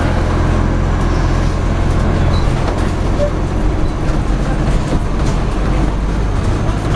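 Wright StreetDeck double-decker bus on the move, heard from inside on the upper deck: a steady low diesel engine drone with road and body noise. The engine note changes about two and a half seconds in.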